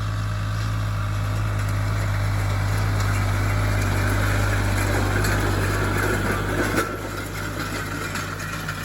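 Tractor engine running steadily under load while working a field with a disc and drag. A rush of mechanical noise builds through the middle, loudest about seven seconds in, then eases as the tractor moves on.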